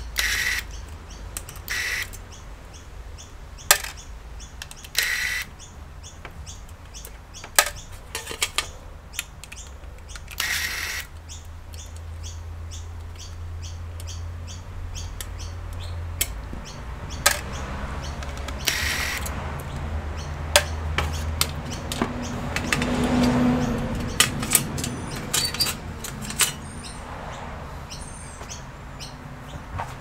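An A-BF electric screwdriver whirring in short runs, about five brief bursts, as it backs screws out of a metal hard-drive caddy. Between the runs come small clicks and clatter of screws and the sheet-metal bracket being handled.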